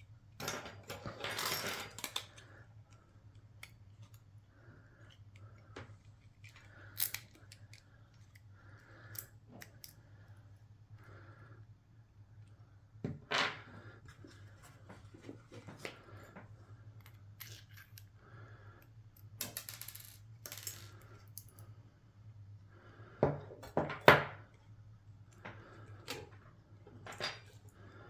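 Small metal parts of a euro lock cylinder being handled during re-pinning and assembly: scattered light clicks and taps of pins, springs and tools, with a brief rustle near the start and a few sharper knocks about two thirds of the way through, over a low steady hum.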